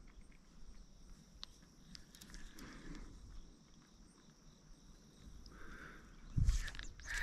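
Quiet outdoor ambience with a faint steady high hiss, a few light clicks, and a low thump about six and a half seconds in.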